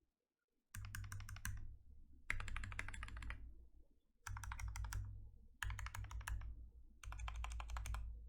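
Typing on a Glorious GMMK TKL mechanical keyboard with lubed Gateron Brown tactile switches and PBT keycaps: five bursts of rapid keystrokes, each about a second long, with short pauses between them.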